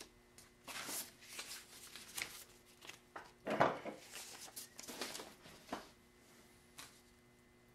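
Hands pressing and pinching soft oil-based modelling clay onto a wire armature: a run of quiet rustling and rubbing handling noises, loudest a little over halfway through, followed by a single light click.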